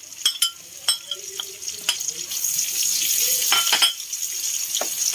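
Sliced onions, garlic and pork sizzling in hot oil in a metal wok while being sautéed, the sizzle growing louder from about two seconds in. A metal ladle clinks and scrapes against the wok several times.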